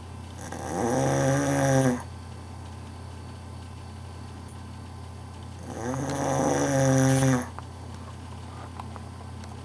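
A man snoring: two long snores about five seconds apart, each lasting about one and a half seconds, rising a little in pitch at the start and then holding steady.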